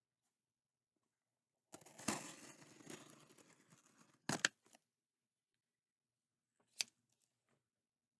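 Scissors cutting open the packing tape on a cardboard box: about two seconds of scratchy cutting and tearing, then a sharp double clack a little after four seconds and a single click near seven seconds.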